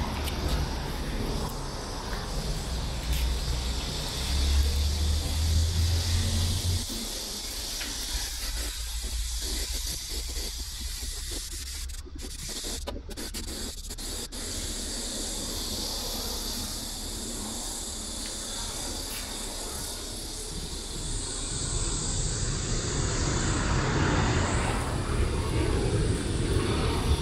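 Steady outdoor hiss, with a low rumble that drops away about a quarter of the way in.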